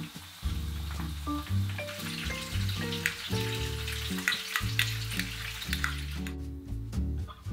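A crackling, sizzle-like noise of food being worked into a bowl, over soft background music with a stepping bass line. The crackle stops about six seconds in, leaving only the music.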